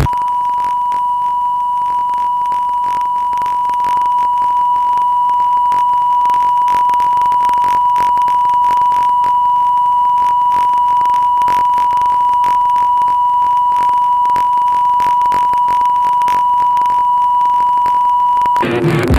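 Steady electronic test tone: one unbroken high beep at constant pitch, with faint crackle under it, cutting off suddenly near the end.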